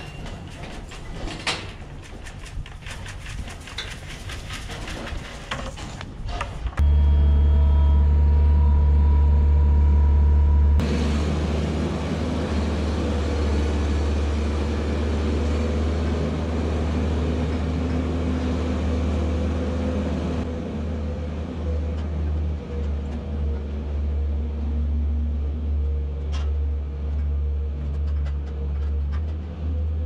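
A skid-steer loader's engine running steadily while spreading sawdust bedding in a barn. It starts suddenly about seven seconds in and is loudest for its first few seconds, then runs on a little quieter with small rises and falls. Before it come scattered light knocks and clatter as heifers feed at a metal feed bunk.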